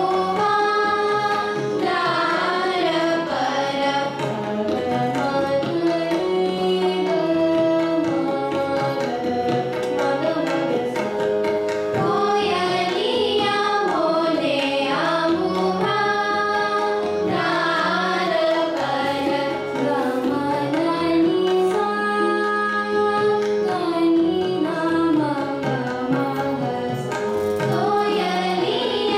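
Young girls singing Raag Malkauns in Hindustani classical vocal style, the melody winding up and down in long phrases, with tabla playing a steady rhythm and harmonium accompaniment.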